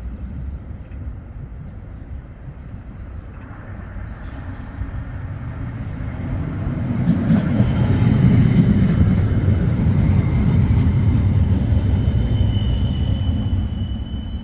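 CAF Urbos 100 tram approaching and passing close by. The rumble of its wheels on the rails grows louder over the first half and stays loud, with several steady high-pitched whining tones from about halfway.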